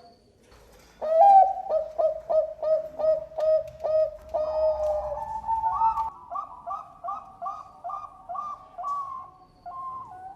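Zebra dove (perkutut) cooing. After about a second of quiet comes a rapid, rhythmic string of short coos, about three a second, then a longer drawn-out note and a run of higher-pitched coos.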